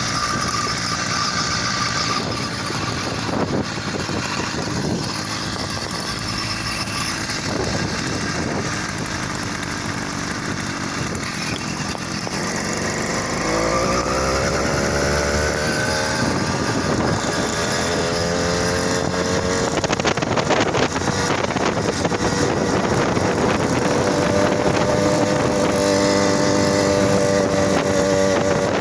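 100cc two-stroke motorized-bicycle engine, exhaust muffler with its inner tube cut out, running under load while pulling up a hill. About halfway through the engine note rises in pitch and then holds at a steady, slightly louder pitch.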